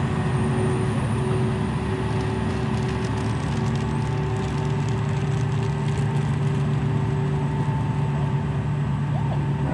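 A ferry's engine running steadily, a low drone with a steady hum above it that grows stronger about four seconds in.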